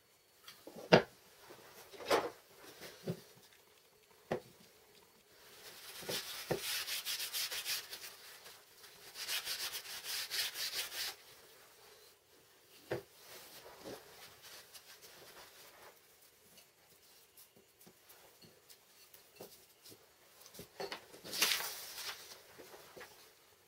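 MDF pieces sanded by hand: two long stretches of quick back-and-forth rubbing strokes and a short one near the end. Sharp knocks and clicks come from the wood pieces and a spring clamp being handled on the tabletop.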